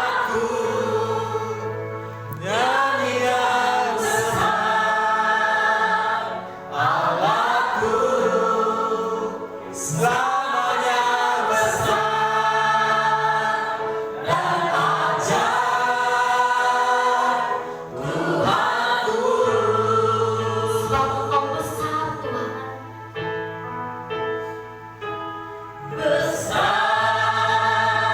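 Voices singing a worship song together in long held phrases, over instrumental accompaniment with a steady bass.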